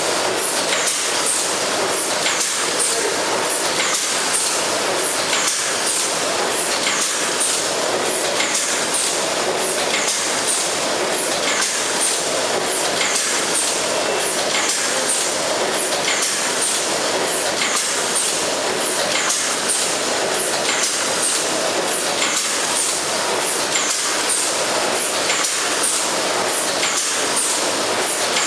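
Automatic horizontal packing machine running steadily: a continuous mechanical din with a regular click or clack a little more than once a second as it cycles containers under the filling funnel.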